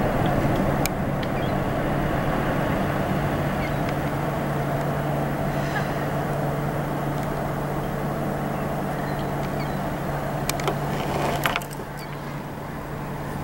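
Large cruise ship's engines and thrusters running as it slowly pulls away from the dock: a steady low hum under a constant rushing noise. A few sharp clicks come near the end, and the sound drops somewhat quieter just before the end.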